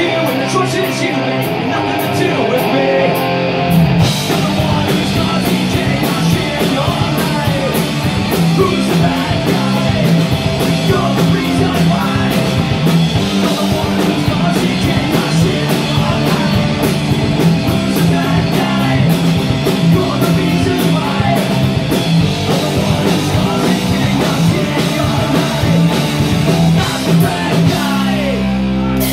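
Live punk rock band playing loud: electric guitar leads on its own at first, then about four seconds in the drums and bass crash in and the full band drives on, with the singers shouting along into their microphones.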